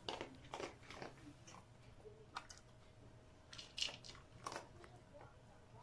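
A dog working a kibble-dispensing treat ball: faint, irregular crunches and clicks of dry kibble, louder just before four seconds in.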